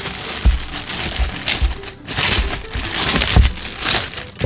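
Thin clear plastic bag crinkling and rustling in uneven bursts as it is pulled off a plastic toy machine, with a few low thumps.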